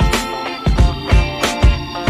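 Background music with a steady, funky drum beat and sustained instrumental notes.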